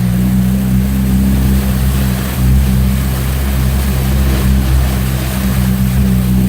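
A vehicle engine running at a steady pitch, a low even hum with a rushing noise over it.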